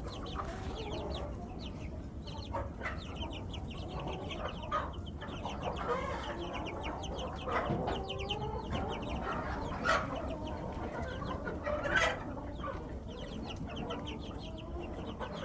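Chickens: a dense chorus of chicks peeping rapidly with hens clucking among them, and two short sharp knocks in the second half.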